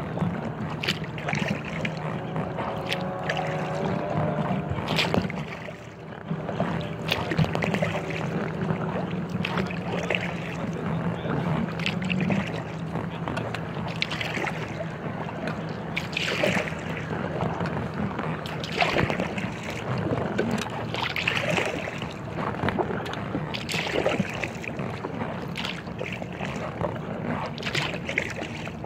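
Kayak paddle strokes dipping and splashing in the river, about one every two and a half seconds, with water trickling off the blades between strokes. A steady low hum runs under the first half.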